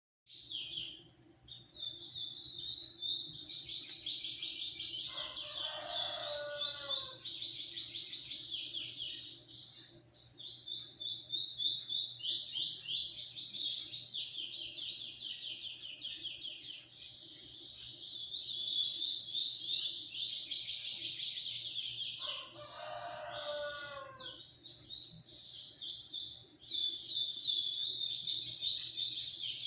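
A songbird sings a long, fast, high twittering song with only brief pauses. A lower, falling phrase comes in twice, about five seconds in and again past twenty seconds.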